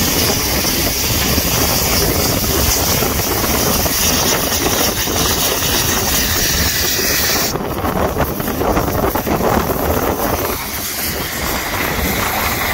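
Narrow-gauge steam locomotive hissing steam from its open cylinder drain cocks as it moves along the platform. About seven and a half seconds in, the hiss cuts off, leaving the rumble of the engine moving slowly and wind noise.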